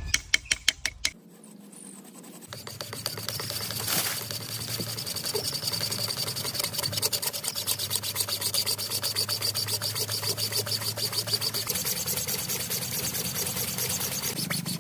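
A small machine running with a fast, even ticking and a faint high whine, after a few sharp clicks in the first second.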